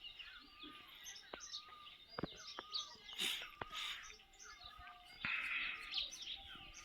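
Several small birds chirping and calling in short, varied notes, overlapping one another, with a few faint clicks among them.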